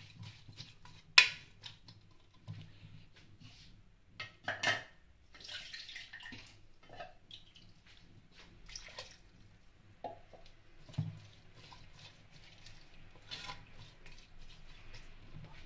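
A plastic spoon scraping and knocking against the sides of a metal pressure cooker while stirring a wet, chunky vegetable mixture. The clatters are irregular, with the sharpest knock about a second in.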